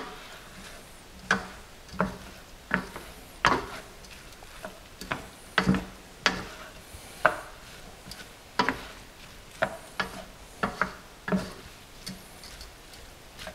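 Spatula scraping and knocking against a skillet as rice, chicken and sausage are folded together, in irregular strokes about once or twice a second, over a faint sizzle of the food frying.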